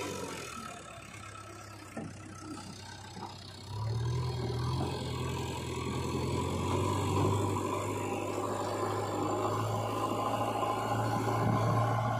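JCB 3DX backhoe loader's diesel engine running, lower at first with a couple of light knocks. About four seconds in it revs up and holds a louder, higher note under load as the front bucket is pushed along the ground into a pile of soil.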